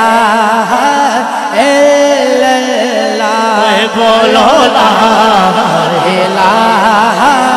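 Man singing a naat unaccompanied by drums: long, drawn-out melismatic notes with wavering ornaments, held without breaks for words, over a steadier lower held note.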